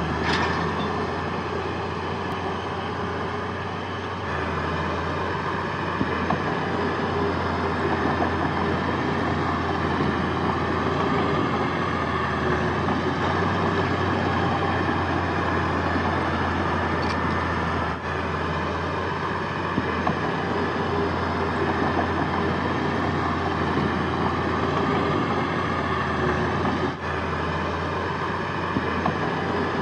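Heavy diesel earthmoving machinery running steadily under load, a continuous deep engine drone, with a few brief metallic clicks or clanks.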